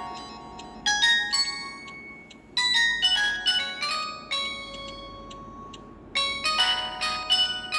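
Samsung GT-E1150 mobile phone playing a ringtone: a synthesized melody of short high notes in quick phrases, over a steady low hiss. Fresh loud phrases start about a second in, a third of the way through and near the end, with notes dying away between them.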